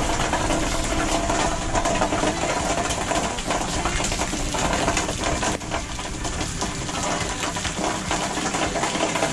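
Heavy rain falling steadily in a thunderstorm: a dense patter with a low wind rumble on the microphone.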